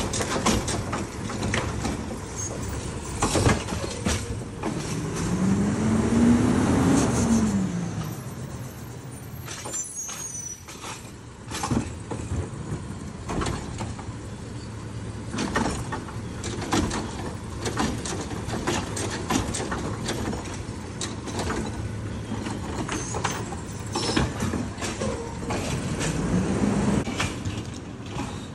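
Automated side-loader garbage truck working a curbside cart: the engine and hydraulics run steadily, with a hum that rises and falls as the arm lifts and dumps the cart, once about six seconds in and again near the end. Frequent sharp clanks and knocks from the arm and cart run throughout.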